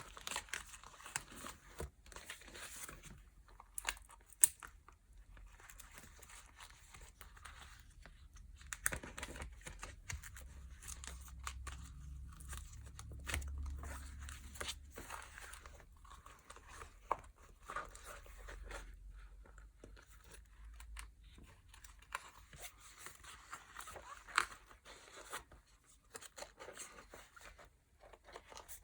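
Packaging being handled and opened: crinkling and rustling wrapping with bits of tearing and light clicks and taps, with a low rumble through the middle.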